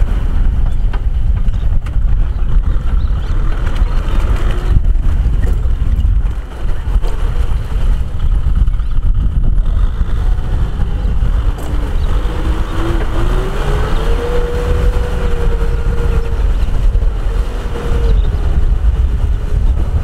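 Kubota farm tractor's diesel engine running under load as it drags a disc plough through flooded paddy mud. The engine note rises about two-thirds of the way through, holds for a few seconds, then eases off near the end.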